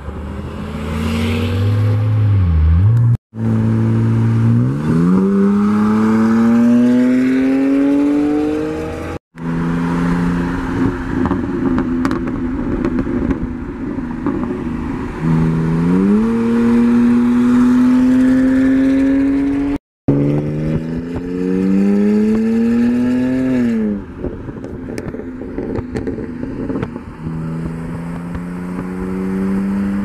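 Car engines pulling hard at full throttle in rolling races, the engine note climbing steadily in pitch over several long pulls. The pulls are cut off abruptly three times by clip edits.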